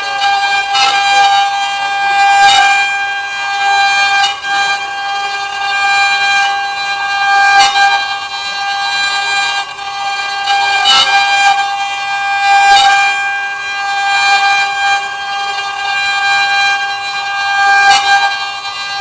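CNC wood-engraving router's spindle running with a steady high whine while cutting, broken by a few sharp ticks.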